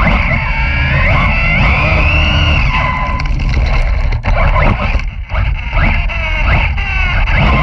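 Brushless electric motor of a Team Corally Kronos RC truggy running on a 4S LiPo, its whine rising and falling with the throttle, over a steady low rumble of tyres and wind on the onboard microphone. The sound briefly drops away twice in the middle.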